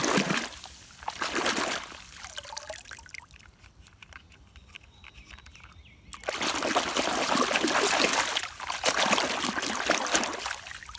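Water running and splashing as a muddy toy car is rinsed clean, in spells: two short ones near the start, then a longer one of about four and a half seconds from the middle on, with a quieter gap between.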